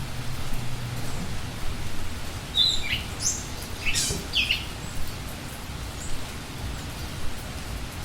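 Steady rain falling, with a bird giving a quick run of four or five short, high chirps about halfway through.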